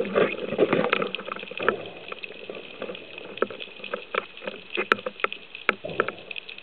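Underwater noise picked up through a speargun-mounted camera's housing: water rushing and bubbling, louder for the first second and a half, with scattered sharp clicks and knocks.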